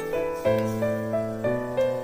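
Background piano music, a gentle melody of single notes over sustained chords.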